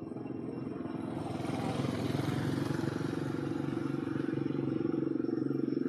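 A motor vehicle's engine on the road, its steady running sound growing louder as it approaches.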